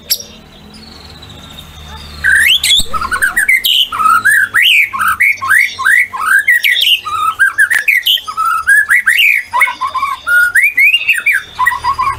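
White-rumped shama in full song: a loud, rapid run of varied whistled notes that slide up and down in pitch, starting about two seconds in.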